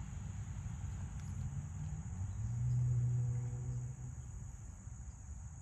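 Steady high-pitched chorus of insects such as crickets, over a low rumble. About two and a half seconds in, a low hum swells and fades over about a second and a half.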